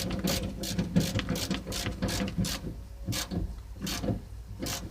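Hand ratchet clicking as it snugs down the 10 mm nuts that hold a car door handle, about four clicks a second, then thinning to a few separate clicks in the second half.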